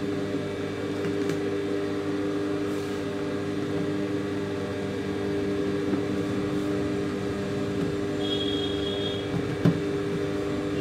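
Steady electric motor hum, with cotton cloth being smoothed and shifted on a sewing table; a single light click near the end.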